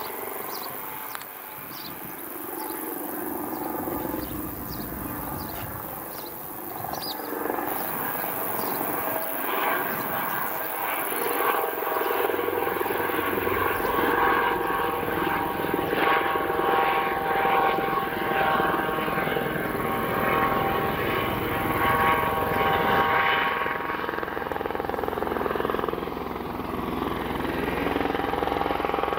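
Eurocopter EC120 Colibri helicopter in flight, its rotor and turbine sound growing louder as it approaches. Steady whining tones from its turbine and ducted fenestron tail rotor come through strongly over the middle of the pass.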